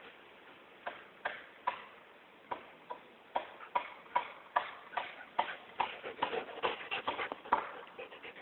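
Sharp plastic clicks of a dog's teeth on a frisbee held in its mouth, a few a second at first and then faster and louder.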